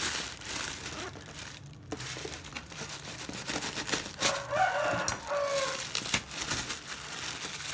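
Thin black plastic bag rustling and crinkling as hands pull it open around a cardboard parcel. About four seconds in, a rooster crows once, for over a second.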